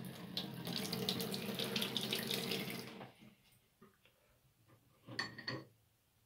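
Tap water running from a faucet into a stainless steel sink, then shut off about three seconds in. A short, sharp sound follows about five seconds in.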